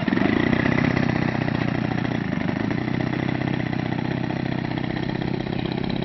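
Single-cylinder two-stroke gas engine of a large RC P-40 Warhawk model (GT 61cc) running steadily at low speed with a rapid, even firing beat, a little louder in the first second before settling.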